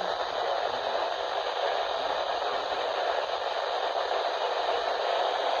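Steady static hiss from a weather radio receiver, with no voice coming through.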